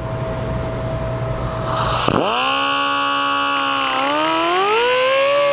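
Cutoff wheel starting up about two seconds in with a high motor whine, making a small relief cut in the burner's fuel stem; its pitch dips briefly, then climbs steadily.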